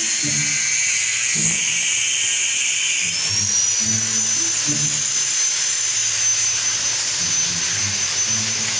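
Background music with a steady beat over a high-pitched power-tool whine. The whine rises in pitch about three seconds in, then holds steady.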